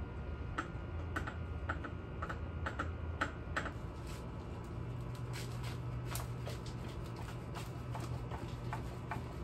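Light, irregular clicks and taps of hand tools on metal parts, a few a second and thinning out after about four seconds. A low steady hum comes in about five seconds in.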